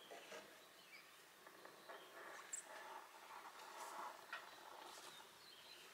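Near silence: faint outdoor background with a few brief, faint chirps, like distant birds.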